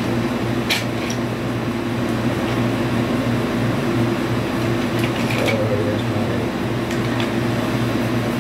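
Portable air conditioner running with a steady low hum and drone. A few short rustles and clicks come from a cloth bag being handled, about a second in and again near five and seven seconds.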